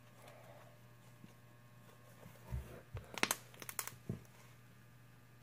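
Fluffy slime being squished and pulled apart in the hands: a few soft thumps, then a quick run of sharp crackling clicks a little past halfway, and one more thump after it.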